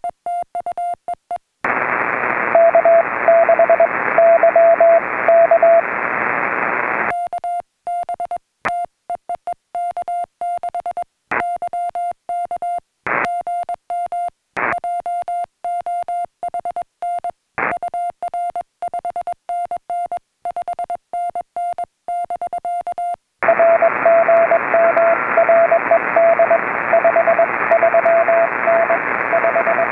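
Morse code (CW) beeping on an HF radio at a pitch of about 700 Hz. A station is received in steady receiver hiss, then the operator's own keyed sidetone plays clean for about 16 seconds with the hiss cut out while transmitting. The hiss and another received station return about 23 seconds in.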